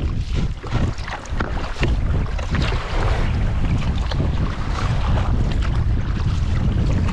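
Strong, gusty wind buffeting the microphone, with water splashing.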